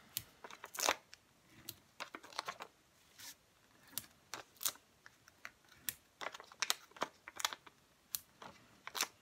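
Irregular small clicks and ticks of foam adhesive dots (Dimensionals) being picked off their backing sheet with a fingernail and pressed onto card stock.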